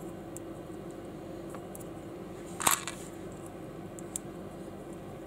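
Small plastic building bricks clicking as they are handled, with a few light clicks and one louder snap about two and a half seconds in, over a steady background hum.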